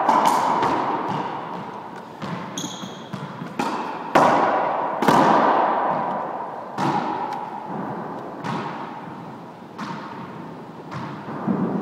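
Squash ball being struck by rackets and smacking off the walls and wooden floor of a squash court: a dozen or so sharp cracks at an uneven pace, each ringing on in the court's echo. One brief high squeak about three seconds in.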